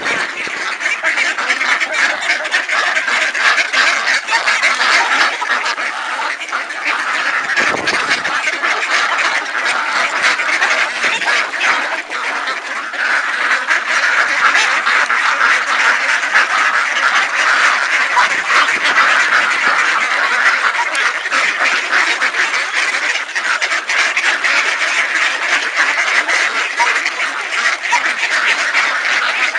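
A large flock of ducks, white domestic ducks and mallards, quacking without a break, many calls overlapping at once.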